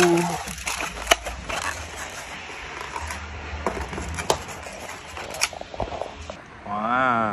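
Wax bakery paper rustling and a styrofoam clamshell box being handled, with sharp crinkles and clicks. Near the end a man's voice makes a drawn-out hummed sound that rises and then falls in pitch.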